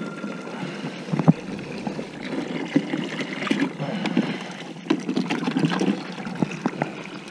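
Dirty recovery water being dumped out of a portable carpet extractor's recovery tank, pouring and trickling with irregular gurgles and small knocks.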